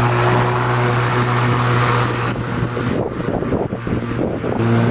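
Murray IQ18WM44 cordless lawn mower, powered by twin 18V lithium-ion batteries, running with a steady electric hum as its blade spins. From about halfway the hum turns rougher and less even, as under the load of cutting grass, and steadies again near the end.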